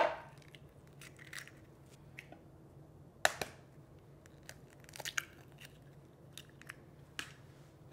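Raw eggs being cracked open by hand: sharp cracks of eggshell, one right at the start and a strong one about three seconds in, with smaller crackles of shell being pulled apart around five seconds and another click near the end.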